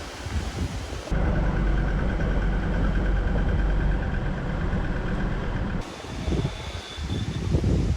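Wind buffeting the microphone, then, after an abrupt cut about a second in, a vehicle's engine and road noise running steadily for several seconds, then uneven gusts of wind again after another sudden cut.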